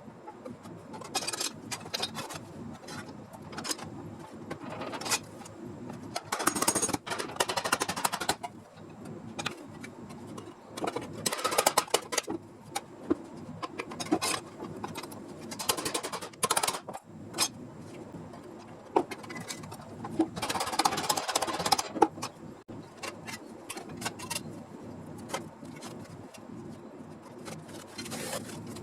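Hand work on a car-body sheet-metal panel: scattered clicks and taps, broken by several short bursts of scraping noise, the longest about seven and twenty-one seconds in.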